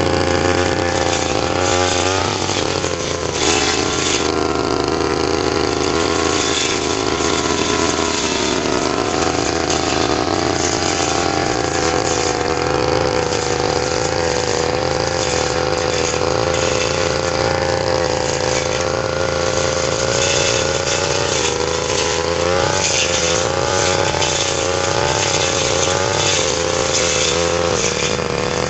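Petrol brush cutter engine running steadily at high revs while cutting grass, its note sagging and wavering briefly a couple of times as the load on the blade changes.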